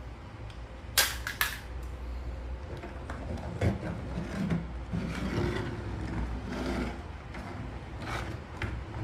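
A plastic toy and its packaging being handled: two sharp clicks about a second in, then scattered small clicks and scraping.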